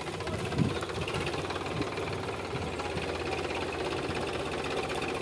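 Sonalika DI 745 tractor's diesel engine running steadily under load while pulling a rotary tiller through weeds, with a single thump about half a second in.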